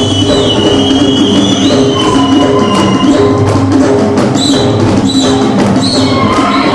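Loud, upbeat show music with drums and percussion over a steady repeating bass line, with a high whistling line that slides in pitch and a run of sharp taps in the second half.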